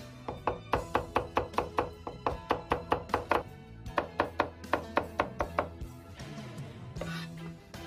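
Chinese cleaver rapidly chopping cucumber slices into thin strips on a plastic cutting board: quick, even knocks about five a second, stopping about six seconds in. Background music plays throughout.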